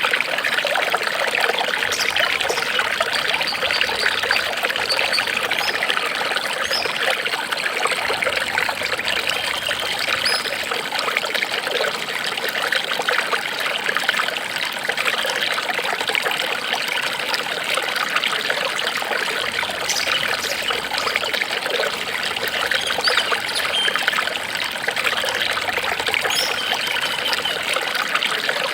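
Water trickling and babbling steadily, like a small stream running over stones.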